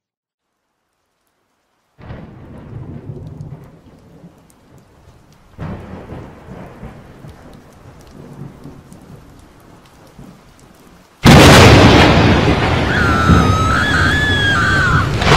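Thunderstorm sound effect: after about two seconds of silence, rain and low rolling thunder rumbles come in, then a sudden, much louder crash of thunder and heavy rain hits about eleven seconds in, with a wavering high tone over it near the end.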